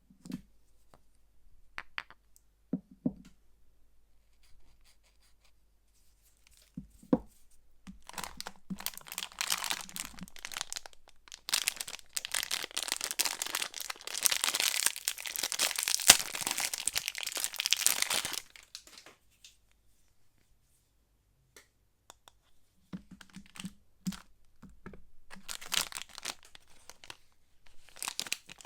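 Soap wrapping being torn open and crinkled by hand. First come a few light taps and clicks, then about ten seconds of continuous tearing and crinkling. After a short pause, the crinkling starts again.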